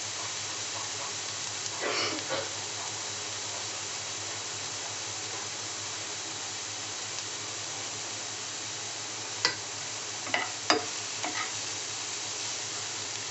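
Chopped onions, green chillies and ginger sizzling steadily in butter in a nonstick frying pan as their water cooks off. A spatula scrapes the pan about two seconds in, with a few short clicks and scrapes near the end.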